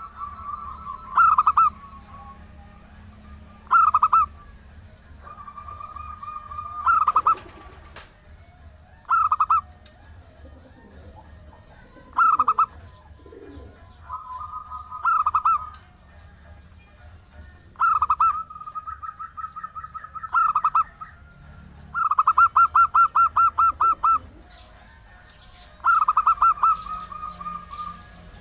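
Female zebra dove (perkutut) cooing, a lure call to draw a male: about a dozen short phrases of quick repeated notes, some running into a drawn-out trill, with a fast stuttering run of about ten beats near the end. A faint low hum runs underneath.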